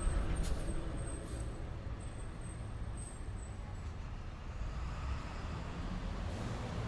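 Night city street traffic heard from a second-floor window: a steady low rumble of passing cars, buses and trucks. A faint high squeal runs through the first few seconds, and there are a few brief hisses near the start.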